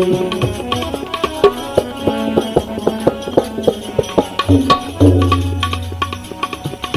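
Instrumental break in a Gujarati bhajan: tabla-style hand drums and small percussion play a brisk, steady rhythm of sharp strokes over faint held accompaniment notes, with a low resonant drum note ringing about five seconds in.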